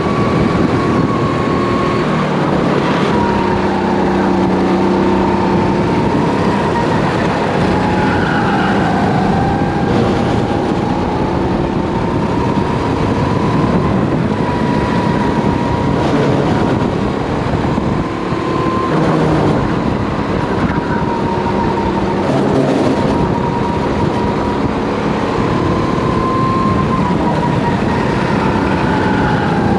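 Race kart engine running hard at speed, heard onboard, its note rising and falling a little as the kart laps the track. A dense rush of wind and engine noise lies under it.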